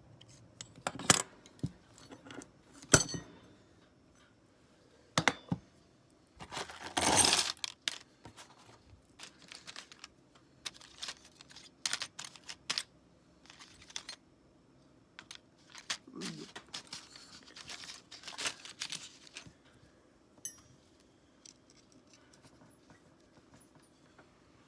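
Small hard objects, such as metal tools and knife parts, clicking and knocking as they are handled and set down, with a short scrape about seven seconds in and softer rustling later on.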